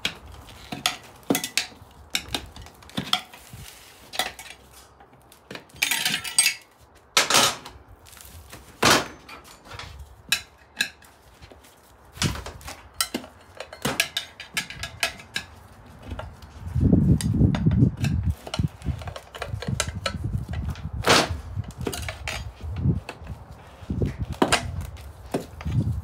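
Tire irons clinking and clanking against a dirt bike's rear wheel rim as the tire bead is levered off, in irregular sharp metal strikes. About seventeen seconds in there is a low rubbing noise lasting a couple of seconds.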